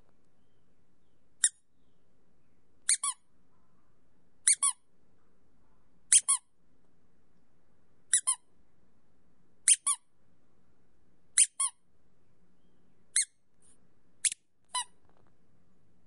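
Small squeak toy squeezed fully, nine times at about one squeeze every second and a half. Most squeezes give a short, high double squeak, squeeze and release close together.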